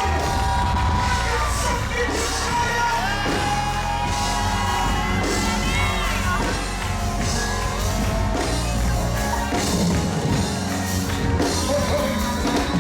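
Live gospel band playing, with held keyboard chords, a bass line and a steady beat, while voices sing and shout along.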